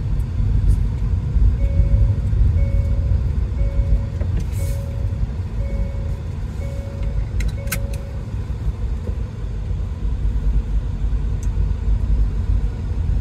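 Low, steady rumble of a taxi running on a wet road, heard from inside the cabin. From about a second and a half in until about eight seconds in, an electronic beep repeats about once a second, some seven times.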